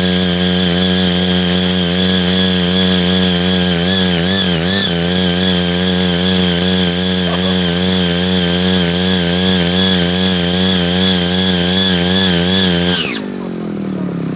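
Small engine of a CY80 folding power tiller running at high revs, steady with a slight waver and a brief dip in pitch about four and a half seconds in. Near the end the pitch falls away and it drops to a lower, slower running, as the engine is throttled back toward idle.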